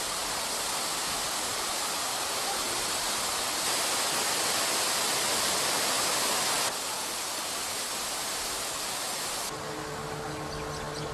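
Waterfall pouring into a rocky pool, a steady rush of water that grows louder for a few seconds and then drops back. About nine seconds in it gives way to the steady hum of a small boat's engine.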